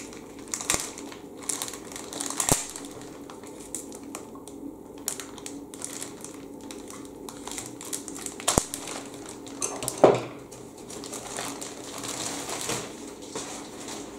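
Clear plastic bag around a model-kit sprue crinkling as it is cut open and pulled off, with several sharp clicks and taps of the plastic, the loudest about ten seconds in.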